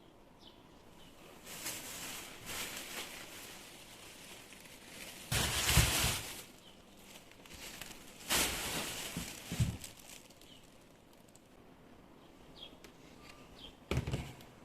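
Several bursts of rustling and handling noise, the loudest about five seconds in, with faint bird chirps now and then in the background.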